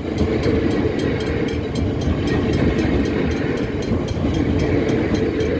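Melbourne Metro electric suburban train running past close by: a steady rush of wheel and rail noise with fast, regular clicking.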